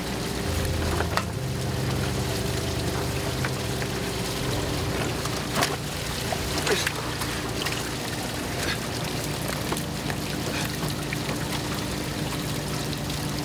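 Water running and splashing on a fishing boat's deck over the steady hum of the boat's engine, with a few sharp knocks in the middle.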